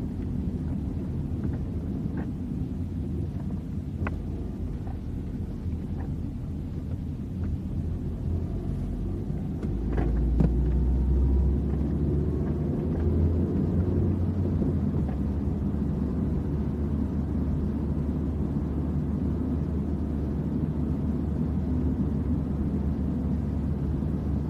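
A car driving, heard from a camera mounted on the car: a steady low rumble of engine and road noise. It swells louder for a couple of seconds about ten seconds in.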